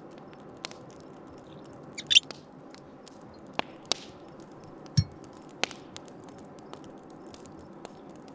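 Campfire crackling with scattered sharp pops, a brief glassy clink of the whisky bottle against the cup about two seconds in, and a dull knock about five seconds in.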